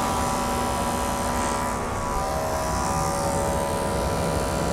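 AC TIG welding arc burning on an aluminium motorcycle engine block, a steady buzz with a fixed set of pitched tones.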